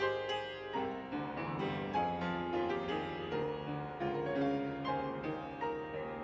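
Piano playing a slow melody over chords, notes struck about twice a second.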